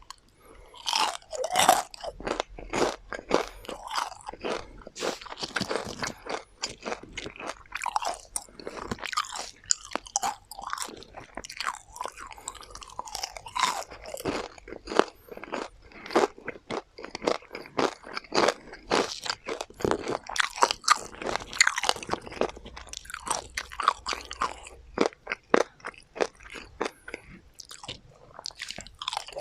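Deep-fried chicken tendons being chewed, with crisp crunches coming in quick, irregular succession.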